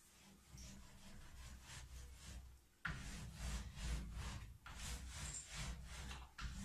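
Small hand roller rolled back and forth over a paint-coated sheet, a repeated rubbing swish about once or twice a second. Under it runs a steady low hum that gets suddenly louder about three seconds in.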